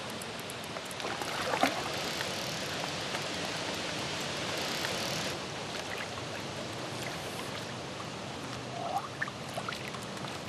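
Water splashing and sloshing as a small hooked mirror carp thrashes at the surface, strongest from about a second and a half in to about five seconds in, then softer.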